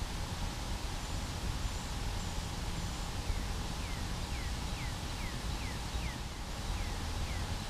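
A bird calling a quick run of about ten short, falling notes, starting a little before halfway through, over a steady low rumble and hiss of outdoor background noise.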